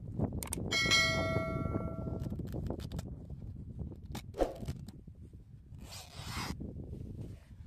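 A bell-like notification ding, led in by a couple of clicks, rings for about a second and a half from an on-screen subscribe-button animation. Wind rumbles on the microphone underneath, with a single knock and a short rustle later on.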